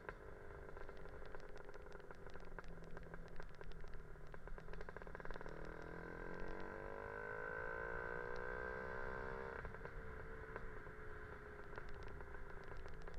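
Lambretta scooter's two-stroke Casa Performance SSR265 engine running steadily, then pulling through a gear with a rising pitch from about five seconds in until the throttle shuts off just before ten seconds. Wind rumble and a rapid ticking rattle run underneath.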